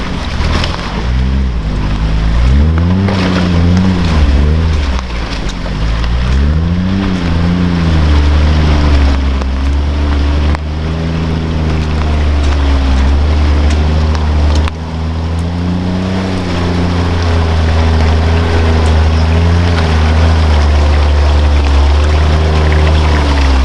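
Off-road truck's engine revving, rising and falling in pitch several times in the first eight seconds, then holding a steady speed.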